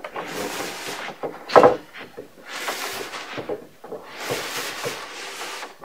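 Heavy wooden bed frame being slid and shuffled across carpet: a few rubbing scrapes, with one sharp knock about a second and a half in.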